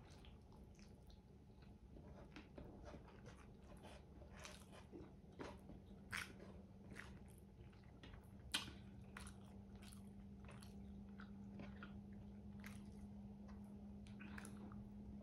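Close-up chewing of chicken and rice: soft wet mouth clicks and smacks, with two louder crunchy clicks about six and eight and a half seconds in. A steady low hum runs underneath, a little louder in the second half.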